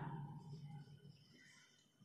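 Near silence: a man's voice trails off and fades out within the first second, leaving a hushed room.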